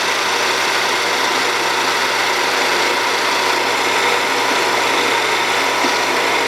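Deckel FP2 universal milling machine running with its spindle geared to 1600 RPM: a loud, steady gear-train noise.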